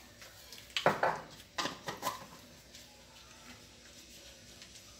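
A few light knocks and clinks of kitchenware being handled around an aluminium pot on a gas stove, about a second in and again near two seconds, then only a faint steady hiss.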